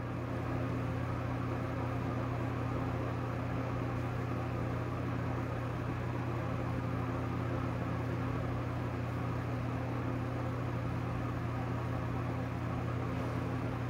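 Steady, unchanging low hum with a faint hiss underneath: background machine or electrical hum.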